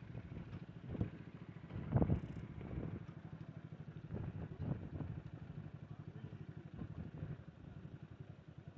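A small engine idling steadily with a fast, even low pulse, with a few short louder bursts over it, the loudest about two seconds in.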